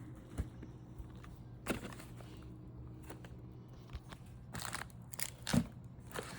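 Firework packages being handled and set down: a few light knocks, then rustling of wrapping and a louder thump about five and a half seconds in, over a faint steady hum.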